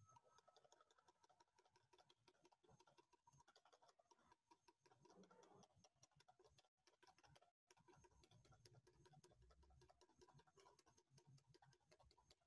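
Very faint, rapid ticking of a wire whisk beating a vinaigrette against the sides of a plastic mixing bowl, with the olive oil being whisked in to emulsify the dressing.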